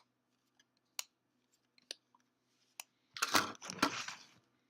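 Yu-Gi-Oh trading cards being flipped through, a sharp card click about once a second. About three seconds in comes the loudest sound, a crinkling rustle of a foil booster pack being handled.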